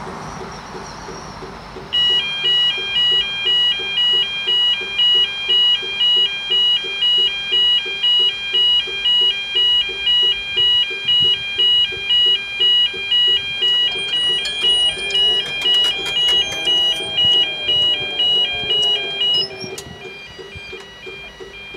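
Railway level crossing warning beeper sounding: a loud electronic beep repeating about twice a second. It starts about two seconds in and drops to a quieter level near the end while still beeping.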